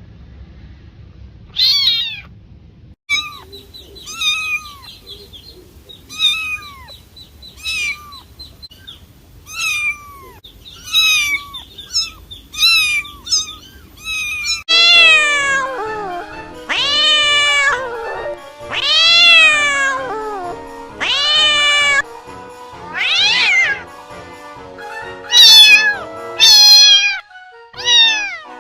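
Domestic cats meowing again and again, short calls that fall in pitch, one every second or two. About halfway through, music starts under the meows, and the meows become longer and louder.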